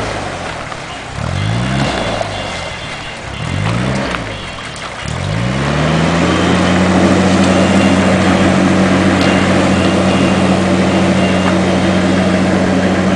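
Narrowboat diesel engine revving: the throttle is opened in short rising bursts about every two seconds, then held at steady raised revs for several seconds before dropping back near the end.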